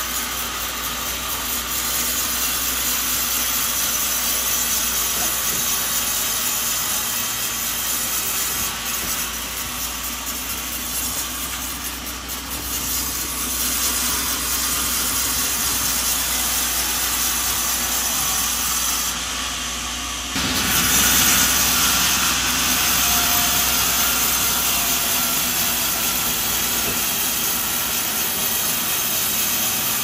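Sawmill saw running and cutting coconut wood: a steady machine noise with sawing. It gets suddenly louder about two-thirds of the way through.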